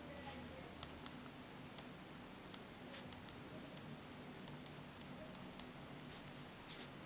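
Faint scratching and light ticks of a ballpoint pen writing on notebook paper, over a low steady hum.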